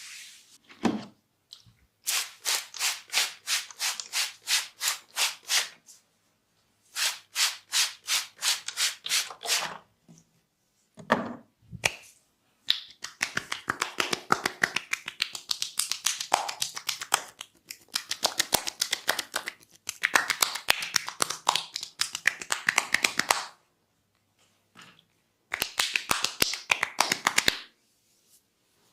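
Hands tapping rhythmically in a percussive massage. Runs of sharp strokes come at about three to four a second, with a long, faster and denser run of tapping in the middle and short pauses between runs.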